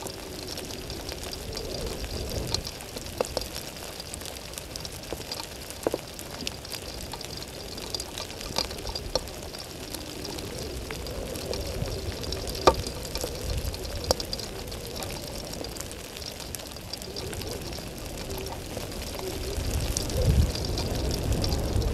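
Rain falling steadily, with scattered sharp ticks of single drops and a low rumble that grows louder near the end.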